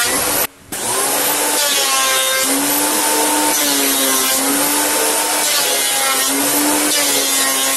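Benchtop thickness planer (a Makita for most of it) running and planing pine boards: a loud motor-and-cutterhead whine over a hiss of chips, its pitch dipping and wavering as the cut loads it. A brief dropout about half a second in.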